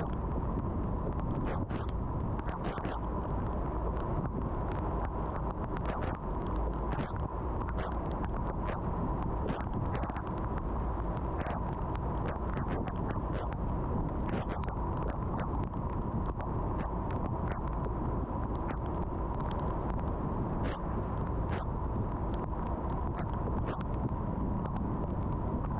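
Car driving on a wet road in the rain: a steady low road rumble with a faint steady hum, overlaid by scattered, irregular sharp ticks of raindrops striking the car.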